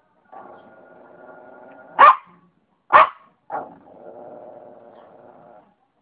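Shih tzu growling in a long drawn-out rumble, breaking into three sharp barks about two, three and three and a half seconds in, then growling again.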